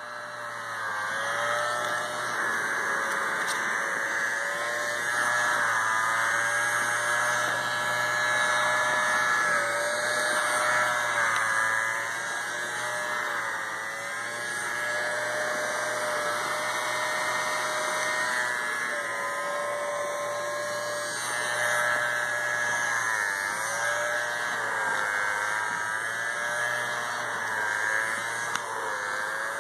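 Small electric motor of a cordless handheld pet-hair vacuum running steadily with a high whine. The whine dips briefly in pitch every few seconds.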